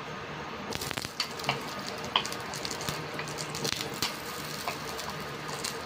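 Raw potato chunks dropped into hot cooking oil in a stainless steel pan: the oil starts sizzling under a second in, with scattered sharp pops and clicks as the pieces land and spit.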